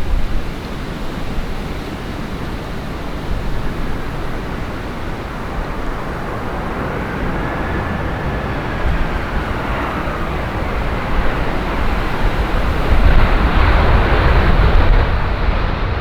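Gusty wind buffeting the microphone over the noise of a passing jet airliner, whose engine whine glides up and then down about halfway through; the jet noise grows louder towards the end.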